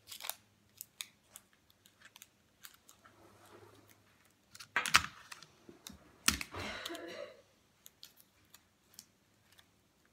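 Adhesive tape being worked off a desktop tape dispenser onto a paper tag and stem: scattered small clicks and crinkles, a sharp knock about five seconds in, then tape pulled off the roll with a rasp lasting about a second.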